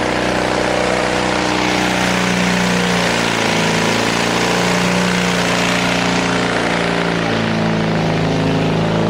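The engine of a 1930 Rosenbauer portable fire pump running steadily under load while it pumps water to the hose lines, its pitch wavering slightly a few times.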